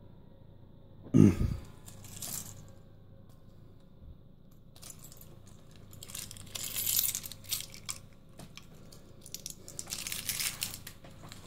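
Handling noises at a desk: a sharp knock about a second in, then scattered rustling and light rattling of small objects being picked up and handled.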